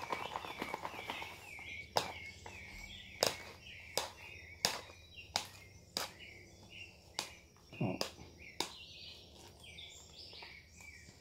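A stirring stick clacking against the sides of a plastic cup as slime is stirred: a sharp click about every two-thirds of a second, with one duller thump about eight seconds in. Birds chirp faintly in the background.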